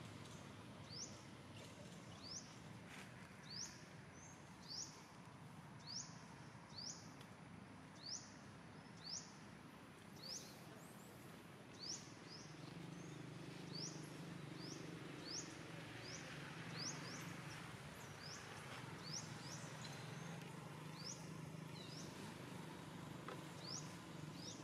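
A bird repeating a short, high, sweeping chirp about once a second, over faint outdoor ambience; a low steady hum comes in about halfway through.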